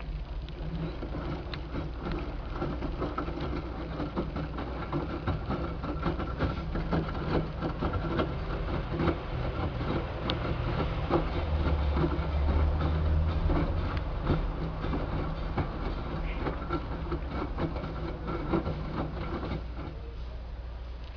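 LG 6Motion front-loading washing machine running with a load of towels: a steady low hum from the turning drum, with many small clicks and knocks. The low hum swells for a few seconds about halfway through.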